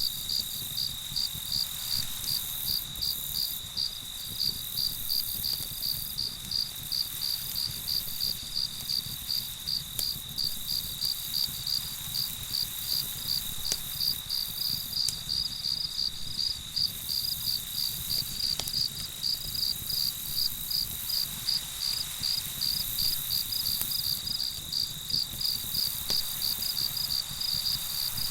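Crickets chirping in a steady rhythm, about two to three chirps a second, over a continuous high insect trill.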